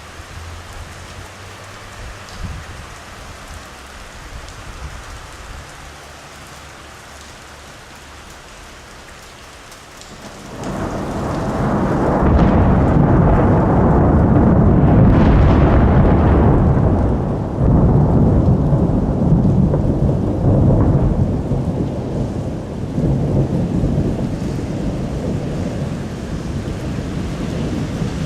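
Steady rain falling, then about ten seconds in a long, deep roll of thunder builds up. It is loudest a few seconds after it starts and goes on rumbling, gradually easing, through the rest.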